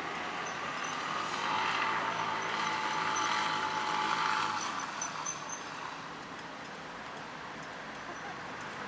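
A road vehicle passing: engine and tyre noise swell over the first few seconds, then fade into the steady hum of traffic.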